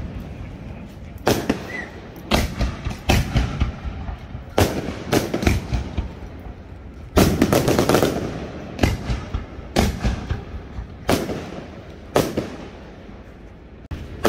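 Aerial fireworks shells bursting in quick succession: about a dozen sharp bangs, each trailing off in an echo, the loudest about seven seconds in.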